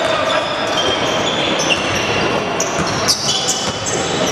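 Basketball dribbled on a wooden court, with many short high squeaks of players' shoes as they run, in a large echoing hall.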